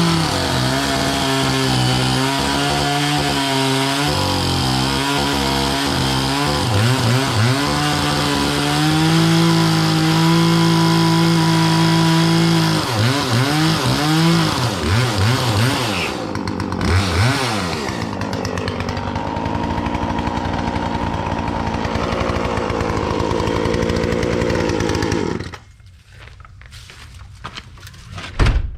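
Poulan two-stroke chainsaw running at high speed, its pitch wavering, then revved up and down several times before settling into a rougher lower note. The engine cuts off abruptly near the end, followed by a single thump.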